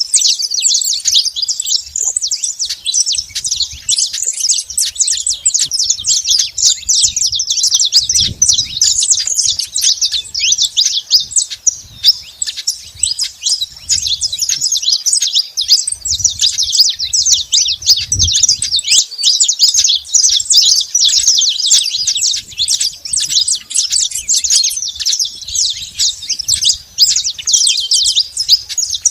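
Saffron finches singing: a dense, unbroken stream of rapid high chirps and trills.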